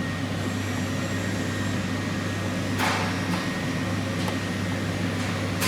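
Steady low mechanical hum, with a short scraping rush about three seconds in and a sharp click near the end.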